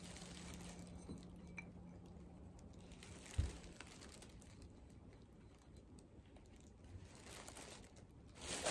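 Quiet room tone with a faint steady hum that stops a little after three seconds in, and a soft knock about three and a half seconds in. Plastic shopping bags rustle near the end.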